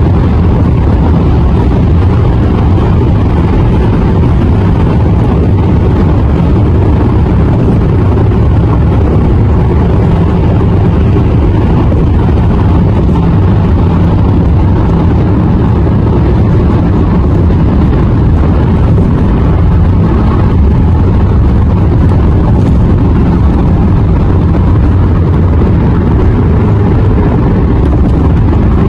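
Steady low rumble of tyre and road noise inside a car moving at freeway speed.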